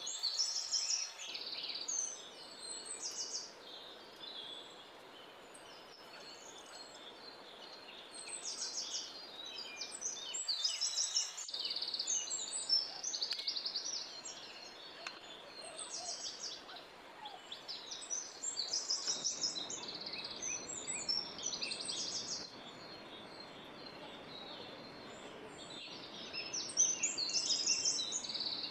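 Small birds chirping and trilling again and again in short high bursts, over a steady background hiss, with a few faint knocks.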